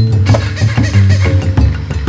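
Background music with a steady percussive beat over a low bass line.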